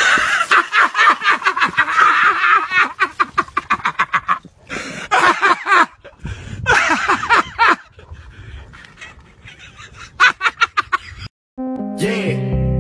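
People laughing hard in several long fits of rapid, pulsing laughter. Near the end it cuts off and video-game music with steady held notes begins.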